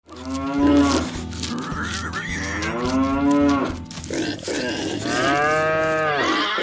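Cows mooing: three long, drawn-out moos whose pitch rises and falls, with a few light clicks between them.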